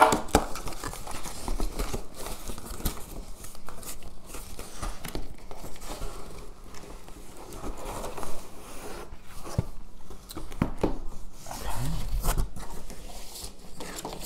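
Cardboard shipping box being opened and handled: flaps pulled back and cardboard scraping and rustling, with scattered clicks and taps throughout.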